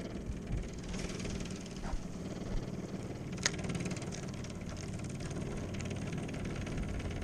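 Small outboard motor of a rental fishing boat running steadily at low revs, with a single sharp click about halfway through.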